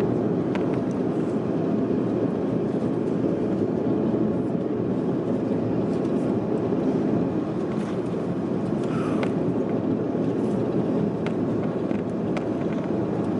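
Steady roar of an airliner in flight heard from inside the passenger cabin: engine and airflow noise, with a few faint clicks from the cabin.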